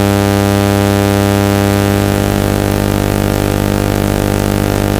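Oscilloscope-music signal: a loud, steady, low synthesized buzzing tone thick with overtones, made of sine, sawtooth and added square waves whose left and right channels draw moving mushroom shapes on an oscilloscope screen. Its lowest tones shift slightly about two seconds in.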